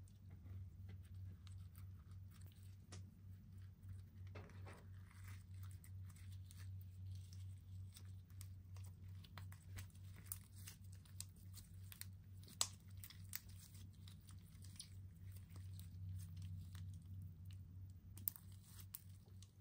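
Faint crinkling and tearing of toy packaging being opened by hand, with scattered small clicks over a steady low hum.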